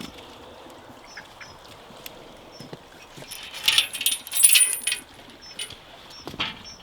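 Small birds chirping in short, high calls. A louder, noisy stretch about halfway through has thin high tones running through it.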